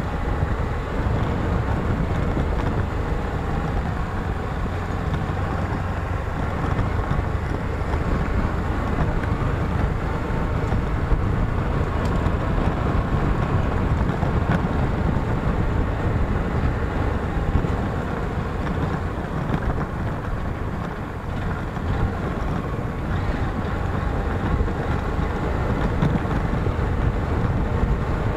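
Small single-cylinder four-stroke motorcycle engine running steadily while riding along a dirt track, with wind buffeting the microphone.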